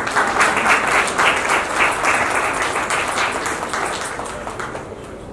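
An audience applauding, a dense patter of many hands clapping that fades away over the last couple of seconds.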